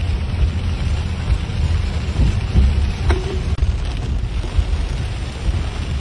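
Heavy rain heard from inside a moving car, with a steady low rumble from the car and its tyres on the flooded road.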